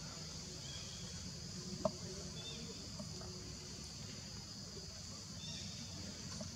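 Steady high drone of insects, with a low rumble beneath it and one sharp click just under two seconds in.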